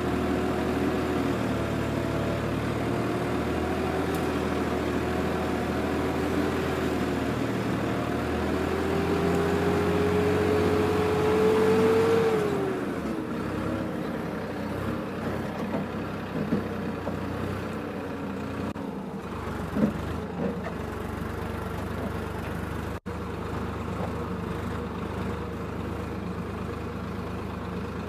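Swaraj 969 FE tractor's diesel engine running under load while pulling a mouldboard plough through grassy soil. The engine note climbs slowly, then drops about twelve seconds in. After that the engine sounds quieter and lower.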